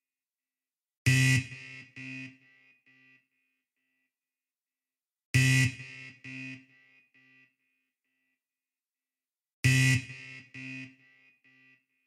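Warning alert sound effect: a harsh electronic buzzer blast, three times about four seconds apart. Each blast is followed by a quieter second buzz and a few fading echoes.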